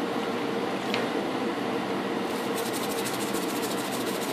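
Propane torpedo heater running with a steady hum. From about halfway, fast scratchy strokes of a hand brush scrubbing a paint-stripped metal lathe part.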